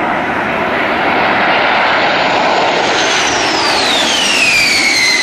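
Large jet bomber making a low, fast pass: a loud rush of jet engines, with a high turbine whine that drops steeply in pitch about three seconds in as the aircraft goes by, then holds at the lower pitch.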